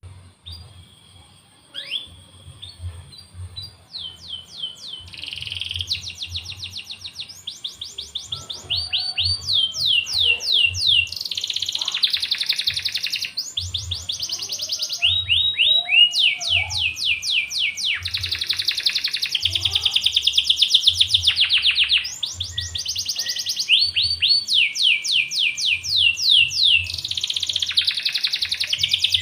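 Domestic canary singing a long song of rapid trills. Each trill is a run of quickly repeated falling notes, and the song switches from one trill to the next every second or two. It starts faint and sparse, then sings loudly from about four seconds in.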